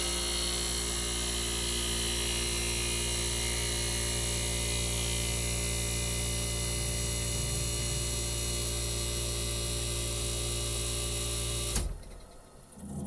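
Hermetic compressor of a 1965 Fedders Weather Wheel air conditioner running with a steady electrical hum, then shutting off abruptly about twelve seconds in. The start-up and shut-off show the freshly cleaned switch working.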